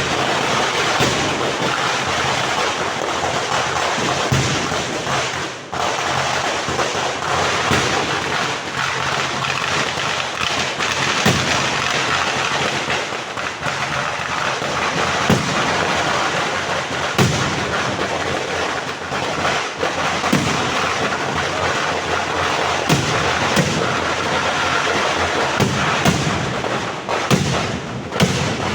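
Firecrackers going off in a dense, continuous barrage: a rapid crackle of bangs with sharper, louder reports standing out, and a brief lull about five and a half seconds in.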